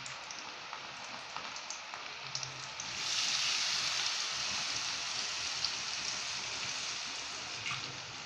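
Batter-coated cauliflower pieces deep-frying in hot oil in a steel kadai, a steady bubbling sizzle. About three seconds in, more pieces go into the oil and the sizzle surges louder, then slowly eases off.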